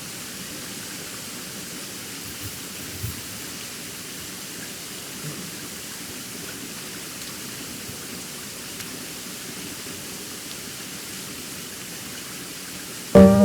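A steady, even rushing noise with a few faint soft knocks. Plucked-string music starts just before the end.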